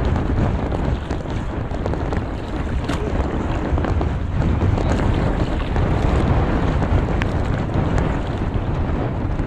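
Steady wind rumble on the microphone with sea noise, while a gill net is hauled hand over hand into a small fishing boat, with a few faint light knocks from the handling.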